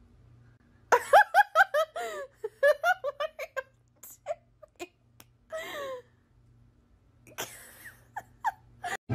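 A person laughing: a quick run of high-pitched giggles, then a few scattered, breathier laughs, with a few sharp clicks among them.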